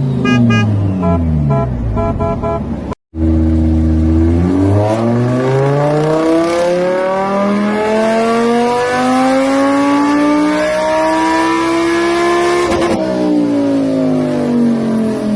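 A car engine accelerating, its pitch climbing steadily for about eight seconds and then dropping near the end as it eases off. Before that come falling engine tones that cut off abruptly about three seconds in.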